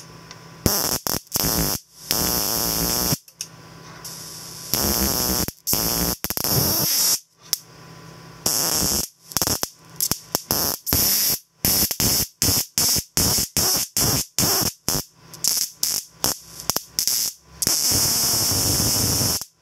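High-voltage arcs from a 17-inch CRT monitor's HV lead to the CRT ground, struck and broken again and again. They come as loud bursts that start and stop, from short snaps to one long arc of about two seconds near the end. The circuit runs straight off the mains with no ballast.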